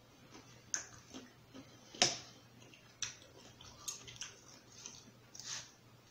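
Close-up eating sounds: wet chewing and mouth clicks with a plastic fork tapping and cutting on the plate. They come as a scattered run of short sharp clicks, the loudest about two seconds in.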